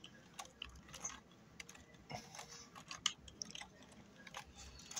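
Faint, irregular clicks of computer keyboard keys being typed.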